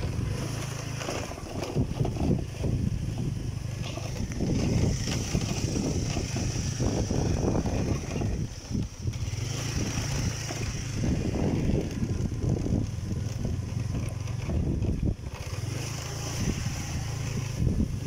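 Small motorbike engine running steadily while riding over a dirt track, with wind rumbling on the microphone.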